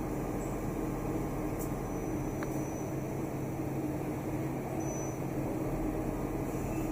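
Steady mechanical hum of a robot-tended CNC lathe cell running, with a faint tick about two and a half seconds in.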